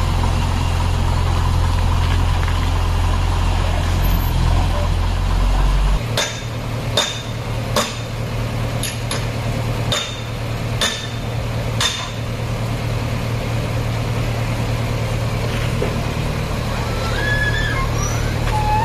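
Diesel engine of a JCB 3DX backhoe loader running steadily while loading soil into a lorry; its deep note changes about six seconds in. Over the next six seconds come about eight sharp metal clanks.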